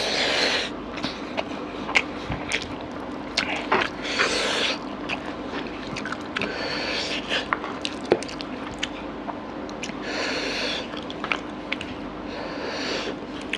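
Close-up wet squishing and squelching of rice and mutton curry gravy being squeezed and mixed by hand, in several short spells, with many small sticky clicks and smacks in between.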